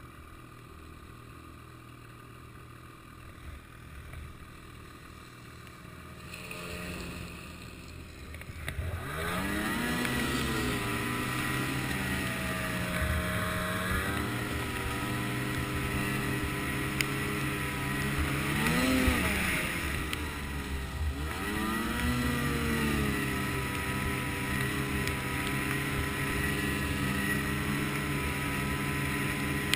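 Snowmobile engine heard from the sled's own hood: quiet at first, then about nine seconds in it opens up and runs at speed, its pitch rising and falling a few times as the throttle changes.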